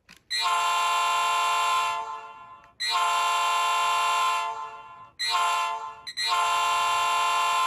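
Sampled Nathan P-3-R2 three-chime locomotive air horn, played by an ESU LokSound 5 DCC decoder through a model SD40T-2's small speaker. It sounds four blasts, long, long, short, long: the grade-crossing signal.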